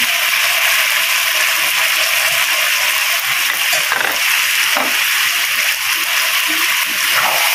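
Chicken and chillies frying in a thick sauce in a hot wok: a steady, loud sizzling hiss.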